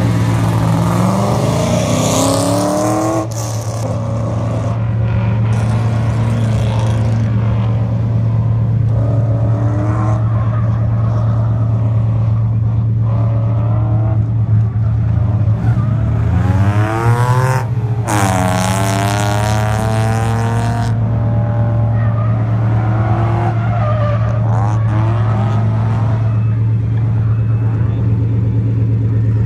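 Drift cars' engines revving hard on track, the pitch climbing near the start and again in a louder sweep about two-thirds through, with tires squealing. A steady low engine hum runs underneath.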